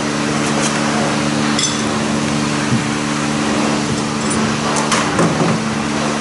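Steady machine hum in a workshop, with a few light metallic clinks of hand tools and pump parts being picked up and set down on a steel bench.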